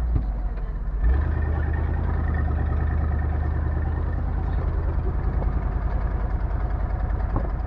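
4x4 vehicle's engine running steadily while driving, its note changing abruptly about a second in.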